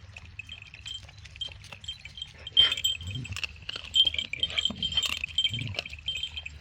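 Light, repeated tinkling chimes, with a few soft knocks among them.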